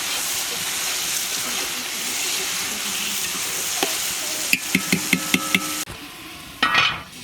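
Food sizzling as it fries in hot oil while being stirred, with a metal utensil tapping the pan about six times in quick succession. The sizzle then cuts off abruptly, and a short harsh rasp follows near the end.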